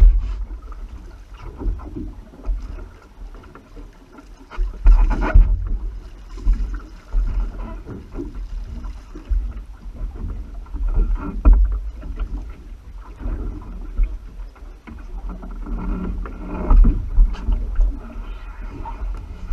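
Sea water sloshing and buffeting against the camera: a muffled, uneven low rumble that swells and falls, with irregular thumps about five, eleven and seventeen seconds in.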